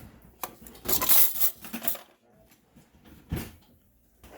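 Clinking and crunching of debris on a floor. A longer scraping rush comes about a second in, and a single knock near the end.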